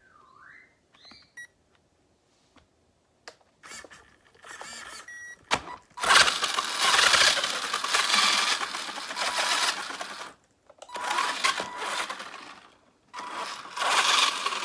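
Brushed electric motor and drivetrain of a 1/10-scale RC car whirring at high throttle in three long bursts, after a few faint clicks and a short quieter whir.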